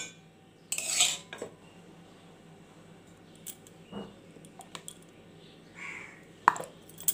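Kitchen utensils clinking and knocking: a steel mixer-grinder jar of spice paste and a bowl handled against a metal kadai. There is a short clatter about a second in, then a few sharp knocks, the loudest about six and a half seconds in.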